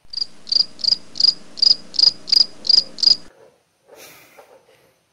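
Crickets chirping, the comic 'awkward silence' sound effect: about nine evenly spaced high chirps, a little under three a second. It starts and cuts off abruptly after about three seconds.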